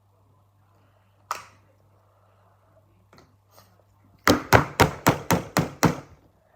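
A single hard knock, then about two seconds later a quick run of seven knocks, about four a second, as of an object being banged on a hard surface.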